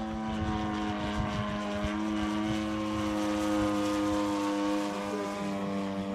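DLE55 single-cylinder two-stroke petrol engine of an MX-2 RC aerobatic plane, flying, its propeller running at a steady throttle. The note swells a little in loudness midway and eases slightly lower in pitch near the end.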